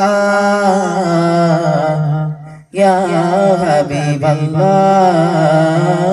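A singer's voice chanting a daf muttu song over loudspeakers in long, wavering held notes. It breaks off briefly for a breath about two and a half seconds in, then carries on.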